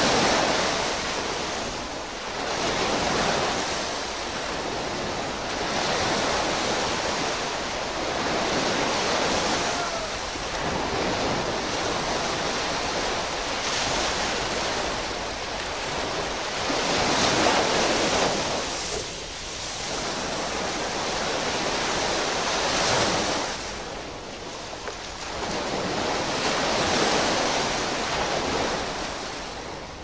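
Ocean surf: waves breaking and washing in, the rushing noise swelling and falling back every few seconds.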